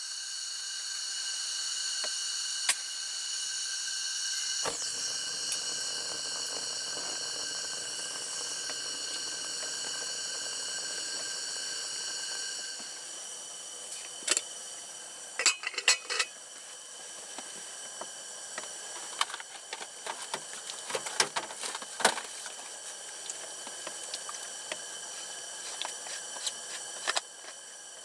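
Propane tank-top radiant heater hissing with a steady whistling tone as the gas flows and is lit, with a sharp click about five seconds in. After about thirteen seconds the whistle drops away to a softer hiss under scattered knocks and clatter of handling.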